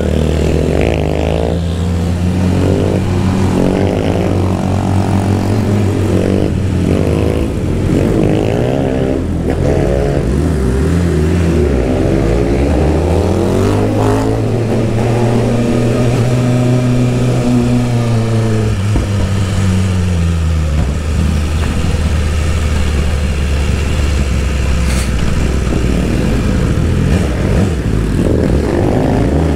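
BMW S1000RR's inline-four engine under way, running without its exhaust end can. The revs rise and fall several times in the first ten seconds or so, climb and drop slowly near the middle, then hold steady.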